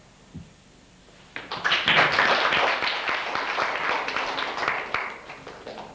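Audience applauding in a room, many hands clapping. It starts about a second and a half in and dies away near the end.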